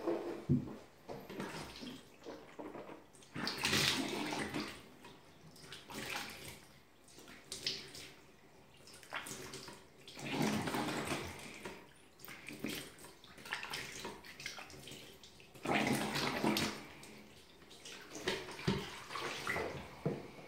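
Tap water splashing into a bathroom sink as hands scoop and rinse at the basin, in several bursts a few seconds apart.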